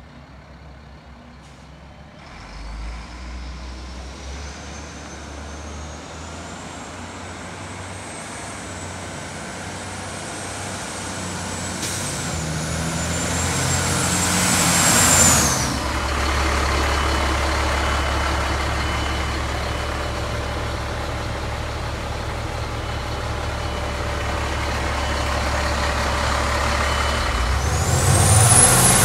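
Caterpillar 3126 diesel of a Freightliner FL70 bucket truck, growing louder as the truck drives up and nears, with a high whine that slowly rises in pitch. About halfway through the sound peaks and the whine drops away. The engine then runs on as a steady low drone, getting louder again near the end.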